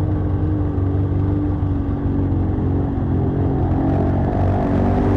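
ATV engine running under steady throttle while riding, its pitch drifting slightly down and back up.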